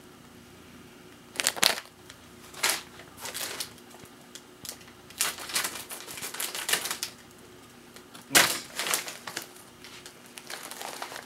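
Crinkly plastic snack bag crackling in irregular bursts as it is handled, with the loudest crackles about a second and a half in and again past the eight-second mark.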